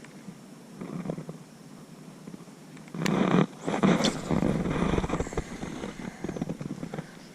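Fishing reel being cranked in short spells, its gears whirring in a fast run of fine clicks. Between about three and five seconds in there is louder rough rumbling with a few sharp clicks.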